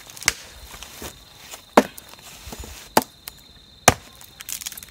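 Small hatchet chopping a log of firewood: four sharp strikes of the blade into the wood, about a second apart, with a few lighter knocks between them.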